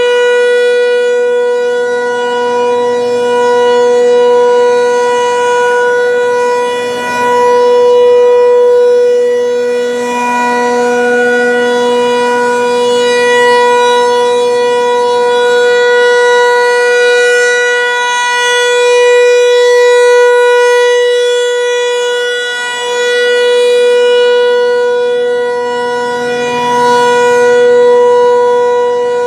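Federal Signal 508 rotating tornado siren sounding its Alert signal: one steady, loud tone that swells and fades every few seconds as the rotating head sweeps past.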